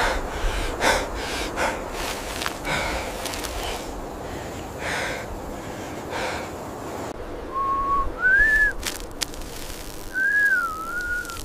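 Several men panting and gasping heavily for breath, a loud breath about every second. About seven seconds in the breathing stops and a single slow whistled tune begins, its pitch wandering up and down.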